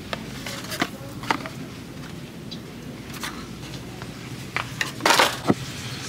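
Handling noise: scattered light clicks and rustles of products being picked up and moved, with a louder rustling clatter about five seconds in, over a steady low in-store hum.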